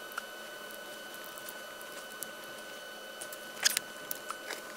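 Faint clicks and light knocks of a MacBook Pro being handled as it is reassembled, with a short cluster of clicks about three and a half seconds in. A steady, faint high whine runs underneath.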